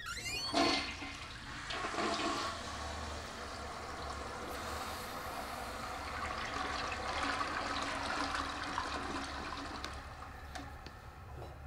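Water rushing steadily for several seconds, starting with a surge about half a second in and fading near the end.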